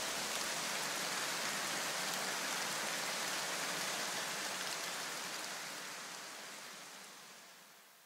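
A steady, even hiss that fades away over the last three seconds.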